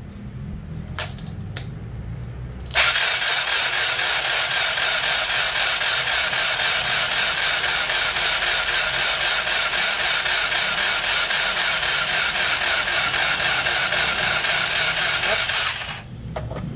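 Power grinder grinding a metal part flat, starting suddenly a few seconds in and running steadily for about thirteen seconds before cutting off near the end.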